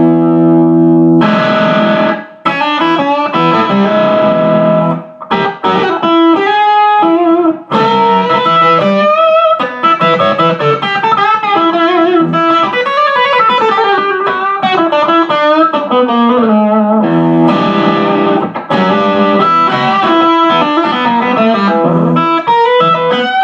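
Electric guitar played through a 1969 Plush P-1000S 100-watt all-tube amplifier, set for its overdriven tone. It opens on a held chord, then moves into single-note lead lines with bends and vibrato, breaking off briefly a couple of times.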